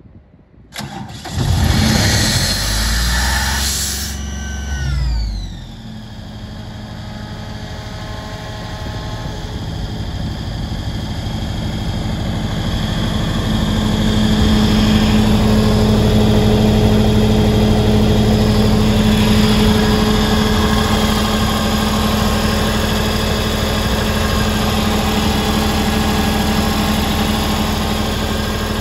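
Diesel engine of an Atlas Copco XAS 66 portable air compressor being started. About a second in the starter cranks it and it catches, with a falling whine around four seconds as it settles. It then runs steadily, growing a little louder over the next ten seconds.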